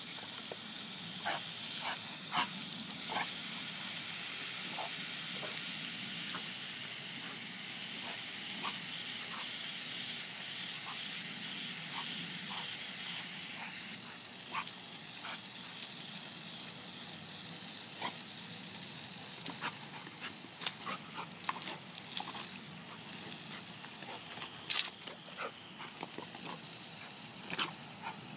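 Garden hose spraying a steady hiss of water, with scattered short sharp splashes and snaps as a dog bites at the stream, coming more often and louder in the last third.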